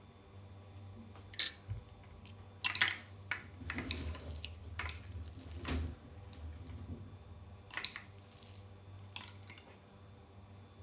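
Eating utensils clinking and scraping against a dish of noodles, with about seven sharp clinks spread over several seconds and a low steady hum underneath.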